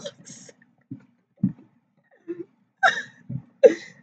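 A person laughing in short, stifled bursts, about half a dozen of them with pauses in between.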